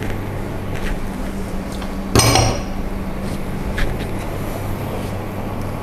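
A glass bowl set down on the stone counter with one sharp clink and clatter about two seconds in, with a couple of lighter kitchenware ticks around it, over a steady low hum.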